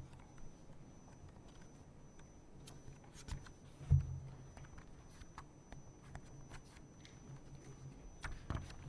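Paper rustling and page handling close to a lectern microphone: a scatter of faint dry crackles and clicks, with a soft low thump about four seconds in.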